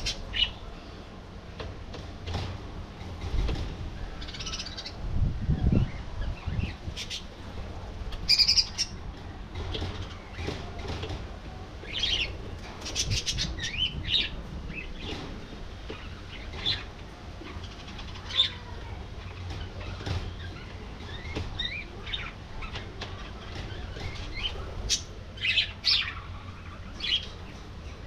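A flock of budgerigars chirping and chattering in short, scattered calls, with wing flaps at times.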